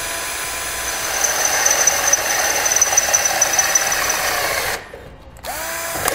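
Milwaukee cordless drill with a 5/16-inch bit drilling out a hole in a sheet-metal bracket, the bit cutting the metal with a high squeal. The drill stops just before five seconds in, then spins up again briefly near the end.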